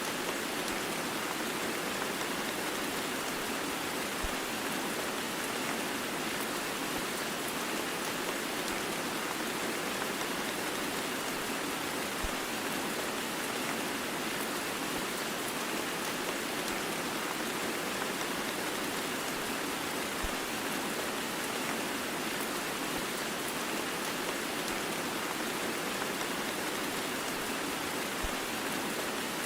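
Steady heavy rain blended with white noise, an even, unbroken hiss with no thunder. A faint low tap recurs about every eight seconds.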